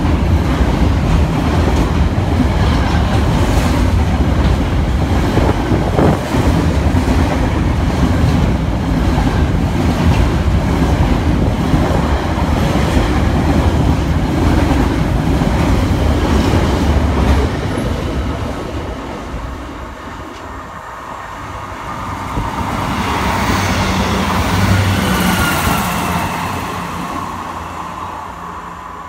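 Freight train of loaded box wagons rolling past close by with steady wheel noise, ending about 17 seconds in as the last wagons go by. A few seconds later a Class 158 diesel multiple unit approaches, its sound swelling and then easing near the end.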